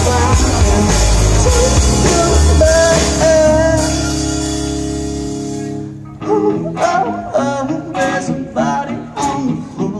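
Live rock band (electric guitar, bass guitar, drum kit and a singer) playing a song. Full band with singing for the first few seconds, then a held chord that fades away around five to six seconds in. After that, a sparser part of separate strummed guitar chords with singing.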